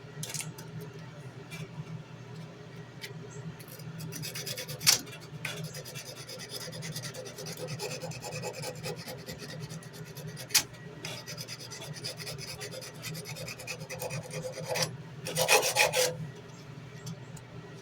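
Sandpaper rubbed back and forth by hand along an 8670 steel tanto blade, a continuous scratchy rasp in repeated strokes. Two sharp clicks come about five and ten seconds in, and a louder scraping flurry comes near the end.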